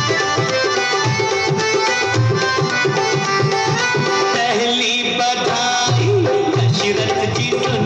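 Indian music with tabla drumming a steady rhythm under held melodic lines.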